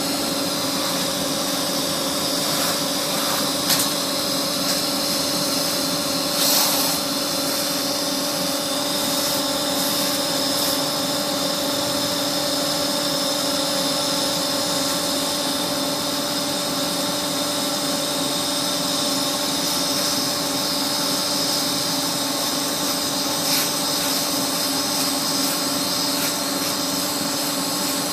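Polygon pole welding machine running: a steady machine hum with several constant whining tones over a hiss, and a few sharp clicks about 4 and 6.5 seconds in.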